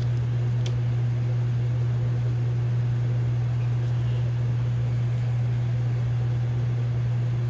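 Ninja Foodi multi-cooker running its fan with a steady low hum while it preheats for bake/roast.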